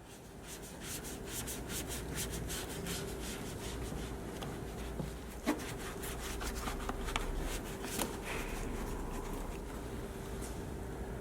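Quick, repeated scrubbing strokes of detailing work on a car surface, over a faint steady hum, with a couple of sharp clicks partway through.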